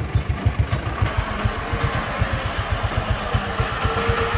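Hoa Mai small diesel dump truck loaded with sand, its engine running with a fast, even low chugging beat as it drives past.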